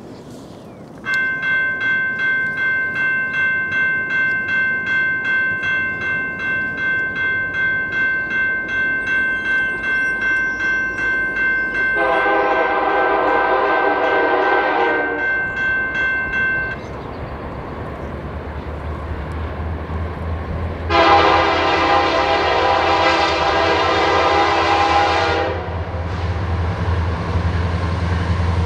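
A railroad crossing bell starts about a second in and rings steadily until about two-thirds of the way through, then stops. The approaching Canadian Pacific freight train's lead locomotive sounds two long horn blasts, the first while the bell is still ringing and the second near the end. A low diesel rumble from the locomotives grows under the second blast.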